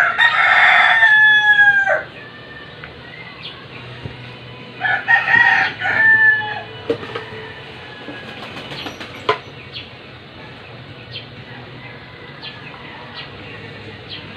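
Rooster crowing twice, each crow about two seconds long and ending in a falling pitch, with faint light clicks in between.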